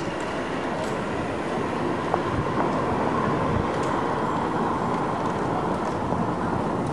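Steady city street ambience: an even background hubbub of a busy street, with a few faint ticks and no single sound standing out.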